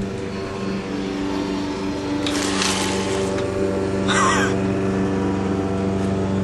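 Petrol lawn mower engine running steadily as the lawn is mowed. A short burst of hiss comes about two and a half seconds in, and a brief wavering high sound about four seconds in.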